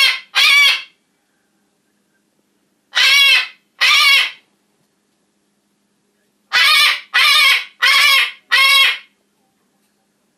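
Macaw squawking loudly in harsh calls of about half a second each: two at the start, two more about three seconds in, then four in quick succession.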